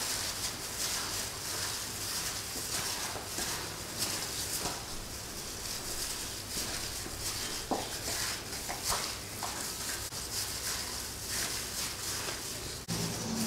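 Raw chicken leg quarters being kneaded by a plastic-gloved hand in a pounded herb marinade in a stainless steel bowl: soft, irregular wet squishing with the plastic glove rustling.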